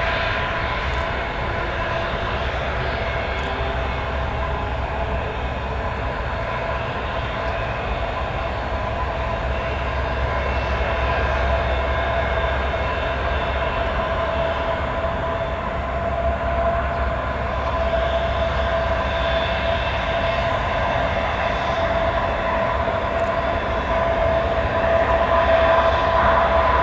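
Kawasaki C-1 transport's two Pratt & Whitney JT8D turbofan engines running at taxi power: a steady whine over a low rumble. It grows a little louder near the end as the aircraft rolls past.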